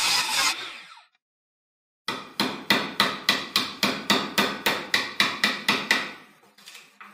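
Hammer striking a wood chisel about three times a second, chipping the bark off the live edge of a board, after a short burst of noise at the start fades out.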